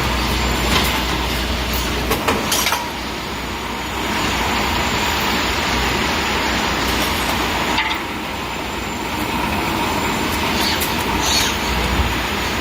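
Automated stabilizer link welding machine running: a steady mechanical noise with a low hum that drops away about three seconds in and returns near the end. Sharp clicks and knocks come now and then, several together a little over two seconds in.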